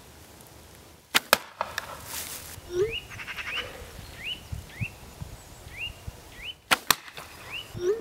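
Two arrow shots at a burlap-bag target stuffed with plastic. Each is a sharp snap of the bow followed a fraction of a second later by the thwack of the arrow striking the bag. The first comes about a second in and the second near the end.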